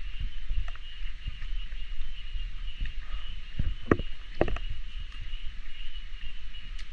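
Cicadas droning steadily in rainforest, with a low rumble of wind and handling on the microphone and a few knocks around the middle.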